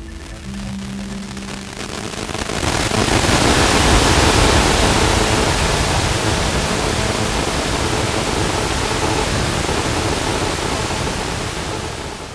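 A low steady hum, then about two and a half seconds in, loud steady static hiss: the white noise of the analog FPV video receiver's audio channel as the downlink signal from the plane is lost.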